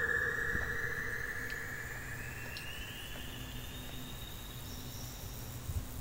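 Electronic synthesizer tone gliding slowly upward in pitch and fading, over a faint low noise bed.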